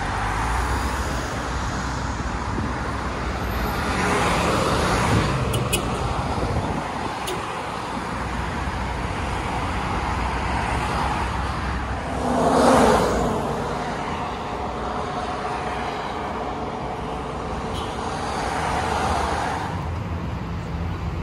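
Road traffic: a steady low engine hum with vehicles passing by, swelling and fading several times, the loudest pass a little past halfway.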